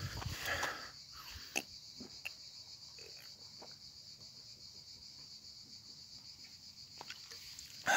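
Steady, high-pitched chirring of insects in the surrounding trees, with a few faint clicks from a plastic water bottle being drunk from.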